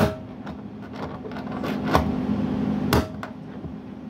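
Hammer blows on a drift held against the hub of an Ariston washing machine tub, knocking out the old drum bearing. There are three sharp strikes: one at the start, one about two seconds in and one about a second later, each with a short metallic ring, over a steady low hum.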